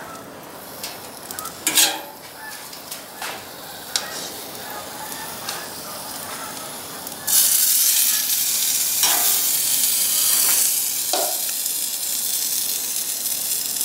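Raw chicken breasts sizzling on a hot grill grate. The sizzle jumps to a loud, steady hiss about seven seconds in as another breast goes down, after a few light knocks of tongs.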